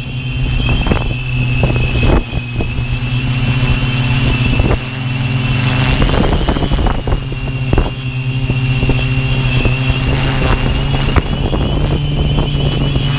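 A multirotor drone's electric motors and propellers run steadily, heard from the aircraft itself: a low hum with a high whine above it. Wind buffets the microphone in irregular gusts.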